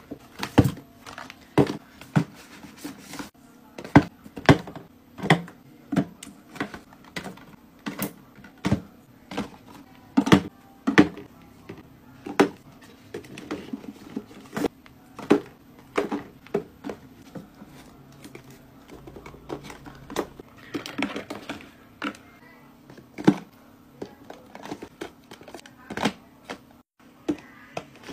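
Skincare boxes and plastic bottles being set down and slid into place in a plastic drawer: irregular light taps and knocks, about one or two a second, with a brief rustle about three-quarters of the way through.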